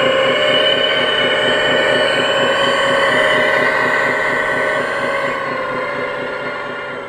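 Hydraulic system of a 1/14-scale RC Hitachi Zaxis 330 excavator running as the boom, stick and bucket work: a steady, several-toned whine over a fast low flutter, easing slightly in level near the end.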